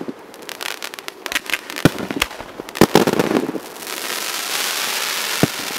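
Fireworks display: aerial shells bursting with sharp bangs, the loudest about three seconds in, among scattered crackles. From about four seconds in there is a steady hissing crackle.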